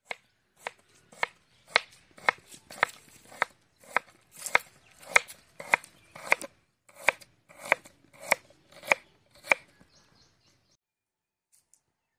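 Kitchen knife slicing a red onion lengthwise on a wooden cutting board: sharp, evenly spaced knocks of the blade on the board, a little under two a second, stopping about ten seconds in.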